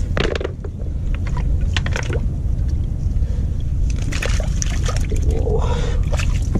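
Hands splashing and sloshing in shallow muddy water between rocks, grabbing at fish hiding under the stones, in short bursts about two seconds in and again between four and six seconds, over a steady low rumble.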